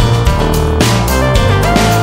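Dramatic background music with a steady driving beat and held notes.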